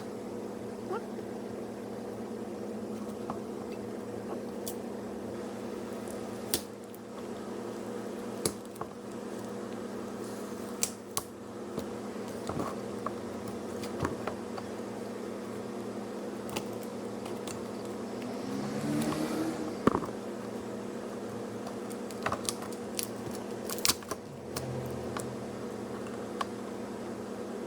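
A steady electrical hum from bench equipment, with scattered sharp clicks and taps of tools on the plastic case of a jump starter being taken apart. A brief sound rising in pitch comes about two-thirds of the way through.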